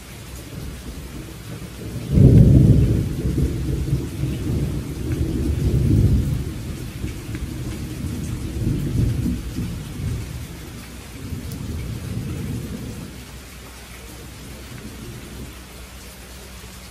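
Thunder breaks sharply about two seconds in and rumbles on in rolling waves for about ten seconds before fading, over a steady hiss of rain.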